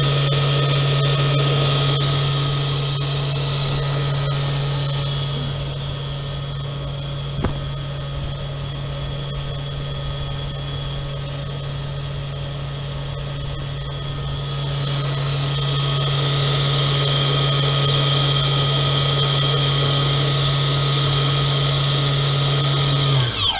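Brushless N2830 motor driving the blower of a 3D-printed ventilator, running steadily at CPAP pressure level 3 with a steady low hum and a high whine. It is softer through the middle stretch. Near the end the hum cuts out and the whine falls in pitch as the motor spins down.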